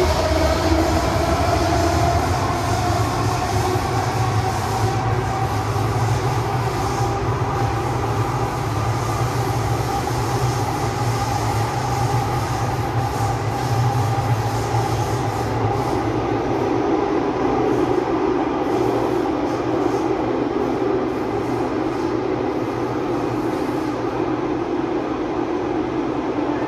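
Metro train running, heard from inside the carriage: steady rumble of wheels on rail with the traction motors' whine rising in pitch over the first few seconds as the train picks up speed, then holding steady.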